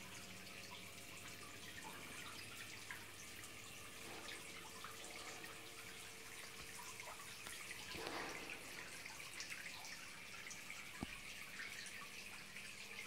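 Small home-made decoration fountain running, water trickling and dripping steadily into its pool, with a single knock about eleven seconds in.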